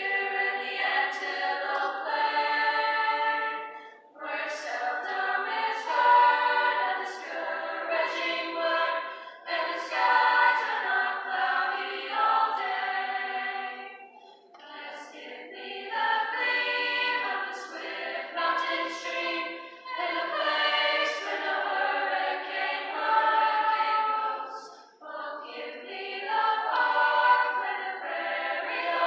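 Mixed-voice high school choir singing, in long phrases with short breaks between them.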